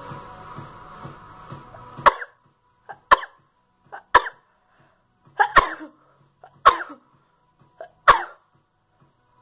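A boy coughing: six short, sharp coughs about a second apart, each with a smaller sound just before it. Background music stops about two seconds in.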